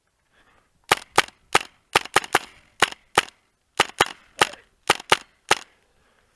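Airsoft gun firing about fourteen single shots in quick, uneven succession, starting about a second in.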